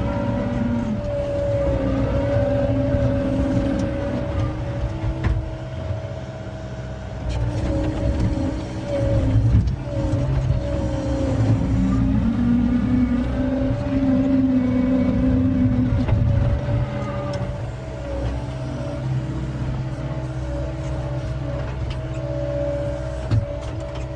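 John Deere 333E skid steer's diesel engine and hydraulics running hard while working a skid-steer log splitter, with a steady whine and lower tones that fall and rise again several times as the load comes on and eases off.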